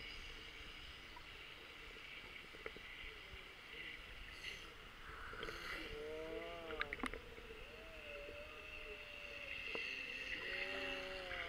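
Muffled sea-water sound heard by a camera submerged in shallow surf: a steady hiss, with a wave washing over and bubbles fizzing around five to six seconds in. From about six seconds on, faint muffled voices call in drawn-out tones.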